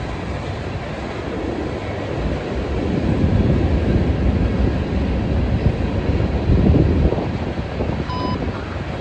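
Long freight train rolling past: a steady rumble and clatter of wheels on rail that grows louder about three seconds in, with wind on the microphone. A short electronic beep sounds near the end.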